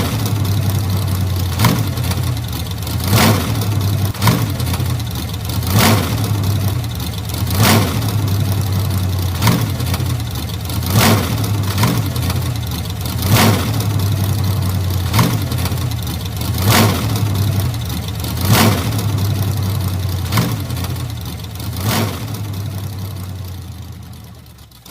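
Old car engine idling with a steady low hum, a short louder pulse breaking through about every one and a half to two seconds, then dying away to silence near the end.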